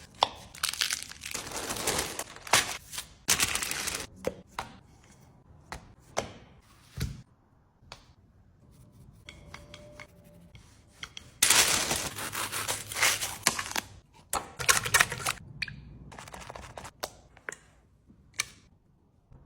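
Miniature cake-making handling sounds: several bursts of crisp tearing and crinkling, the longest about ten seconds in, with scattered sharp taps and clicks between them.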